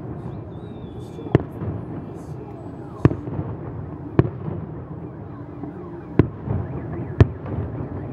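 Aerial firework shells bursting overhead: five sharp bangs spaced one to two seconds apart.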